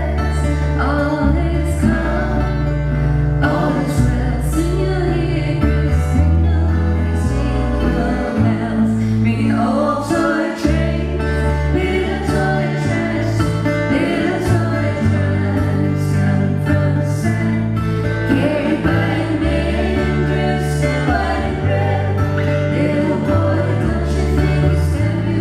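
A woman singing a folk song into a microphone over instrumental backing, with low bass notes that step from one held note to the next.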